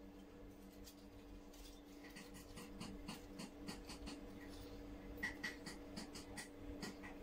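Faint irregular clicks and ticks over a steady low hum, the clicks thickest and loudest about five seconds in.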